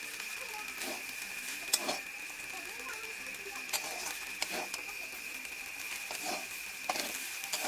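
Metal spatula scraping and clinking against a metal pan as noodles are tossed and stir-fried, in irregular strokes about every half second to a second, over a steady faint high tone.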